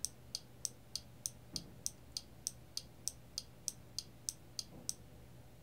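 Small screwdriver turning the blue multi-turn trimmer potentiometer on a sound sensor module: faint, evenly spaced clicks about three times a second, stopping about five seconds in. The clicking is the trimmer's clutch slipping with the wiper at the end of its travel.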